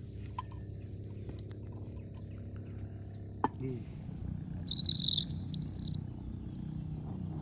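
A bird chirping in a cluster of short high calls for about a second, a little past the middle, preceded by one sharp click. A low steady hum runs underneath.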